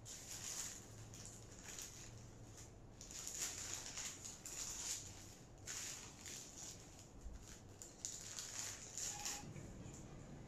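Faint rustling and crinkling of a paper sandwich wrapper being unfolded and pulled open by hand, in short irregular bursts.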